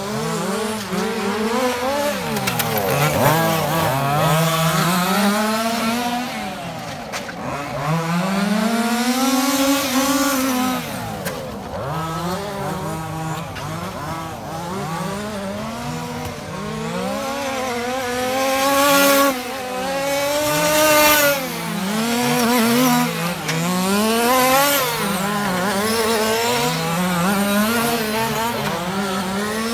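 Zenoah 26cc two-stroke engines of 1/5-scale FG Mini Challenge RC cars racing, revving up on the straights and dropping off into the corners over and over. The sound is loudest as a car passes close about two-thirds of the way in.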